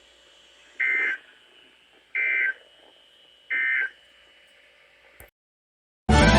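Emergency Alert System end-of-message data code: three short, harsh two-tone buzzing bursts, evenly spaced, signalling the end of the alert broadcast. The sound cuts off abruptly, and music starts at the very end.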